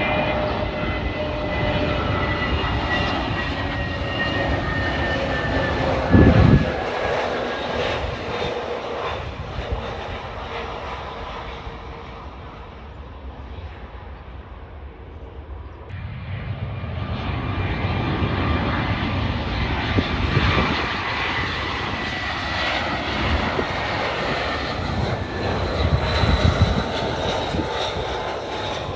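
Jet engines of Airbus A320-family airliners landing: a steady jet roar with whining tones that slowly fall in pitch as the first plane passes, fading away about halfway through. The roar then builds again as a second airliner approaches. A brief, loud, low thump comes about six seconds in.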